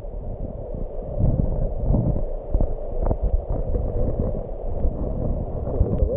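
Muffled underwater noise picked up by a camera submerged in a stream: a steady low rush of moving water with scattered small knocks and taps.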